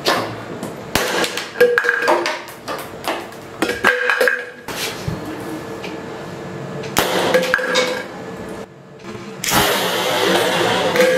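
A pocket-sized calcium carbide cannon being fired several times, giving a series of sharp, irregular pops and knocks, over electronic background music.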